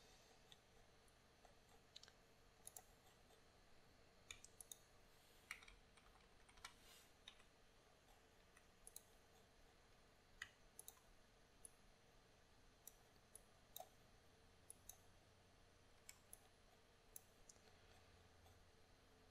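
Faint, irregular clicks of a computer mouse and keyboard being worked during photo retouching, about twenty spread unevenly over near-silent room tone.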